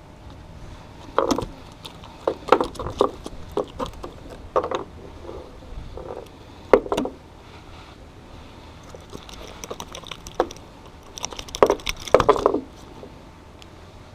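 Irregular handling noises: clusters of short knocks, clicks and rattles, about a second in, again over the next few seconds, once near the middle and in a busier run near the end.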